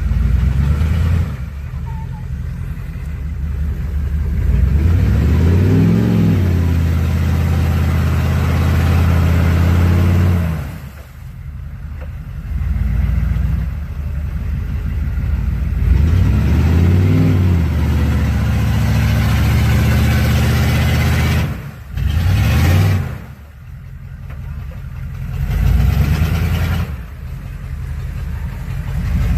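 Off-road 4x4's engine revving hard under load in long bursts, the pitch climbing and then holding high. It eases off about 11 seconds in and then surges and drops several times near the end.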